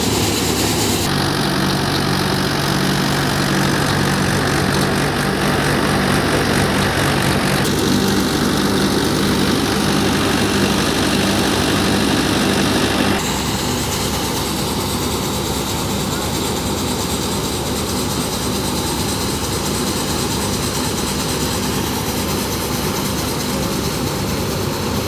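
A Malva multicrop thresher running off a Mahindra 585 DI XP Plus tractor, with its diesel engine working under load, makes a loud, steady machine drone and a dense rattle of the threshing drum and fans as crop is fed in. The sound shifts abruptly about a second in and again about halfway through.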